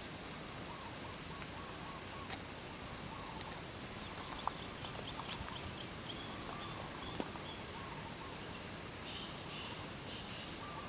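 Birds chirping faintly over a steady outdoor hiss, with three sharp clicks.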